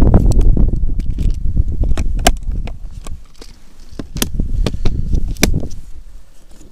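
Gloved hands handling a plastic tackle box and a small plastic container: heavy rustling and low rumbling of clothing at first, then a few sharp plastic clicks of the lids being snapped shut and opened.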